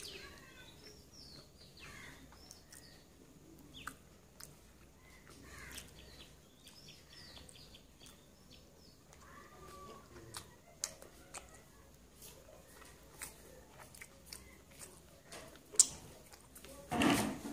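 Quiet eating by hand: scattered soft clicks of chewing and lip smacks as pieces of luchi dipped in curry are torn and eaten, with faint bird chirps in the background during the first half. A short, louder noisy burst comes near the end.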